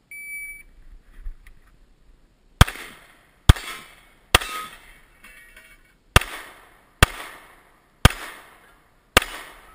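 A shot timer's short electronic start beep, then seven pistol shots, most about a second apart, with a longer pause after the third.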